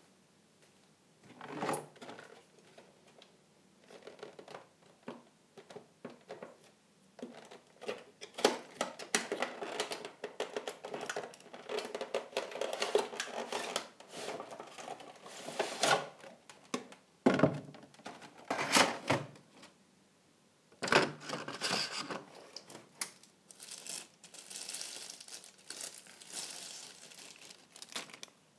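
Packaging of a boxed scale model airplane being handled: irregular rustling, crinkling and tearing with sharp clicks and knocks, pausing briefly about two thirds of the way through.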